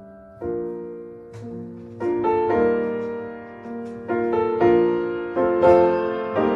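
Piano music: a slow run of single notes and chords, each fading after it is struck, getting louder about two seconds in.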